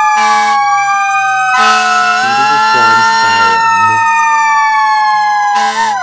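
Siren sound effect playing back, a slow wail whose pitch falls, rises about two seconds in, then falls again, with a quicker wobble near the end. Background music with changing steady notes sits underneath.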